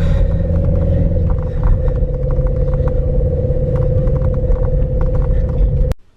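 Car cabin noise while driving: a steady low road and engine rumble with a constant hum over it. It cuts off suddenly near the end.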